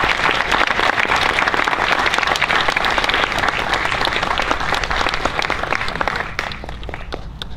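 Audience applauding, a dense patter of many hands clapping that thins to a few scattered claps and fades near the end.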